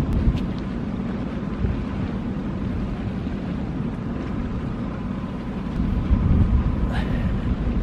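Wind buffeting the microphone: a steady low rumble that grows louder about six seconds in.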